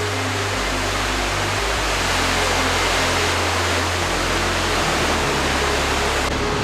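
Steady, loud rushing of a large waterfall.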